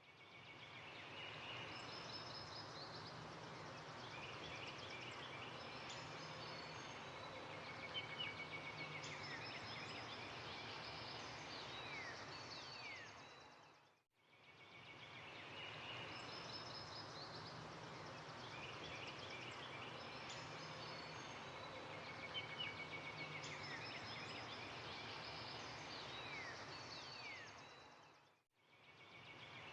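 Faint birdsong over a steady background hiss: short chirps and quick downward-sliding calls. The same stretch of about 14 seconds fades out and repeats twice as a loop.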